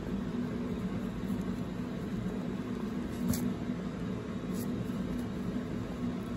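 Steady low background hum of room noise, with a soft tap a little past the middle.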